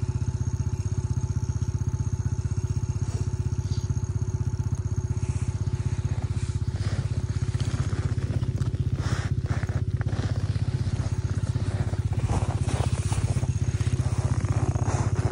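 An engine running steadily with an even, rapid pulse, with scattered clicks and scrapes partway through.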